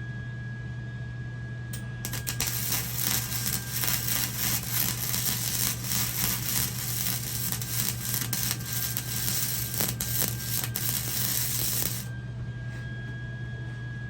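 Gasless flux-core wire-feed welder laying a short weld on the smoker's steel. An even crackle starts about two seconds in and cuts off after about ten seconds, over a steady electrical hum.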